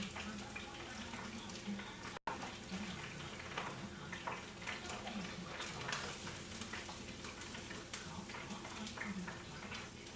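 Turkey wings sizzling in hot frying grease: a steady hiss studded with small crackles and pops. The sound cuts out for a moment about two seconds in.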